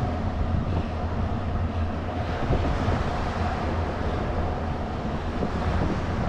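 A small boat's engine running steadily with a low hum, with wind buffeting the microphone.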